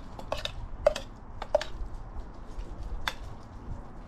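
A metal utensil clinking and scraping against the stainless steel Zebra billy can. There are about half a dozen light, ringing clinks, most of them in the first two seconds and one more about three seconds in.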